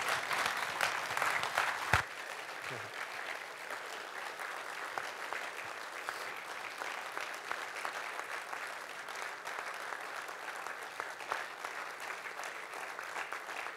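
Congregation applauding, louder for the first two seconds. A single sharp knock comes about two seconds in, after which the applause carries on steadily at a lower level.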